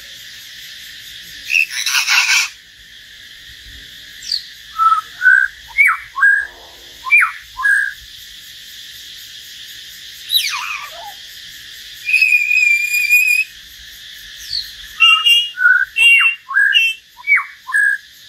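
Caged common hill myna and white-rumped shama singing against each other: a harsh rasping call about two seconds in, then a run of short loud whistled notes, a held whistle about twelve seconds in, and quick whistled phrases near the end, over a steady high hiss in the background.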